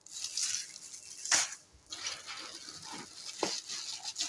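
Clear plastic packaging wrap and bags crinkling and rustling as they are handled, with a sharp crackle about a second in and a few smaller clicks later.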